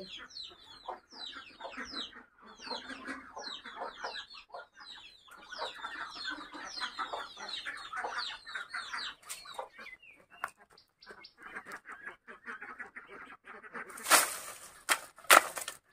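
Domestic hens clucking, with many short high chirps over them. Near the end, a bundle of dry firewood sticks rustles and crackles loudly twice as it is handled.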